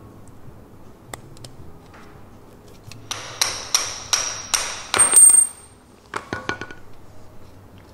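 Quick metal-on-metal strikes, about seven in two seconds, with a bright ring after the last one: a steel punch knocking the bushing out of the lower eye of a QA1 coilover shock body. Light metal clicks of the small parts being handled follow.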